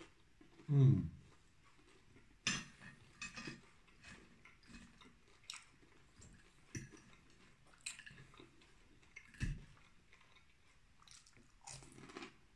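Close-miked chewing of grilled pork and fries, wet mouth clicks and smacks at irregular intervals. About a second in, a short hum of the voice falls in pitch, an 'mmm' of enjoyment.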